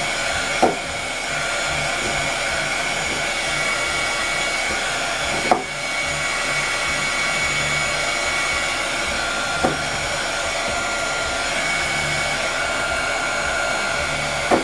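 Heat gun running steadily, a continuous rush of blown hot air with a faint steady whine, shrinking a plastic shrink-wrap bag around a bar of soap. Four brief sharp clicks stand out against it, spread a few seconds apart.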